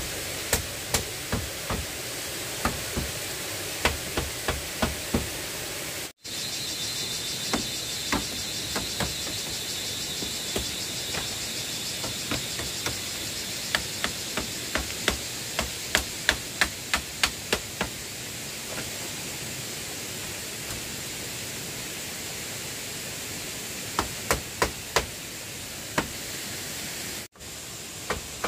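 Repeated sharp blows of a hand tool on bamboo, coming in runs of quick strikes about two to three a second with pauses between, over a steady background hiss. The sound cuts out briefly twice.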